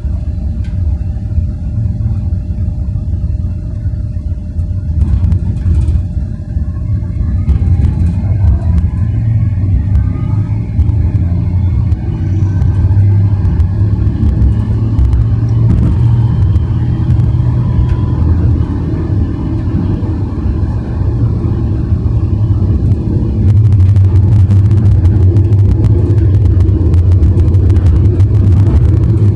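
Bombardier NGT6 low-floor tram running, with a loud, steady low rumble from wheels and running gear. A faint rising whine from the drive comes in about eight seconds in as it picks up speed. Near the end the rumble grows louder, with rapid clicking.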